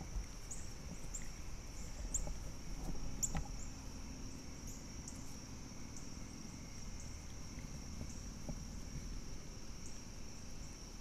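Steady high-pitched insect chorus, with scattered short chirps and a soft knock about three seconds in.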